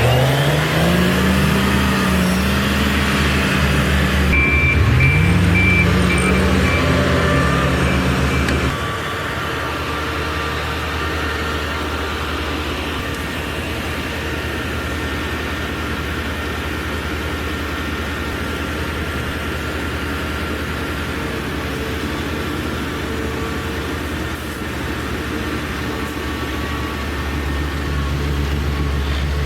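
Heavy snow-removal machines' engines revving up twice early on, then running at a steady drone, with a reversing alarm beeping for a few seconds in the first third.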